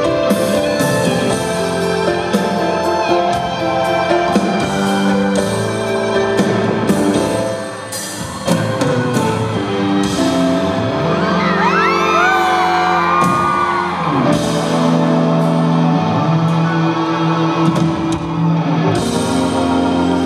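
Live concert music playing loudly through a large hall's sound system, with fans' screams and whoops gliding over it a little past the middle.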